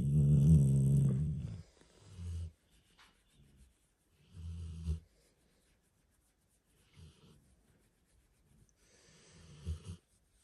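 Drowsy Alaskan malamute being stroked, giving a long, low, pitched grumbling vocal sound for about the first second and a half, then slow snoring breaths roughly every two to three seconds.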